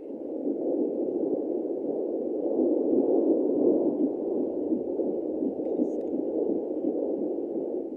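Ten-week fetal heartbeat played through a Doppler ultrasound's speaker, starting abruptly and cutting off after about eight seconds.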